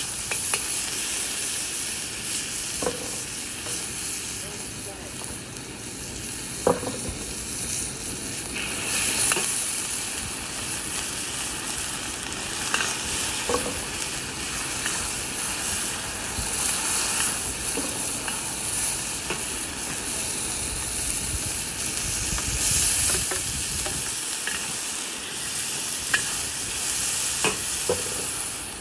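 Food sizzling in hot oil in a wok while a metal wok spatula stirs and scrapes it round the pan, with a few sharp clanks of the spatula against the wok that ring briefly.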